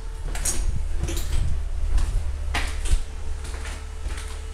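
Footsteps on a bare hardwood floor strewn with grit and debris, a series of short knocks and scuffs about two a second that thin out after about three seconds, over a steady low rumble.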